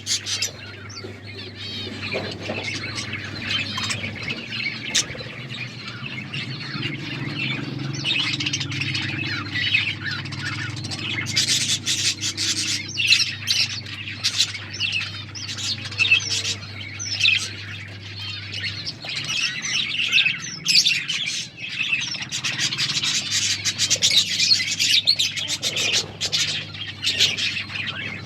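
A flock of budgerigars chirping and chattering continuously, with squawks, busiest in the second half.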